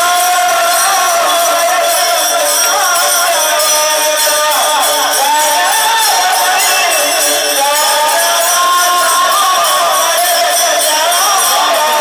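A group of men singing a devotional bhajan together, with small hand cymbals (taal) clashing in a steady beat.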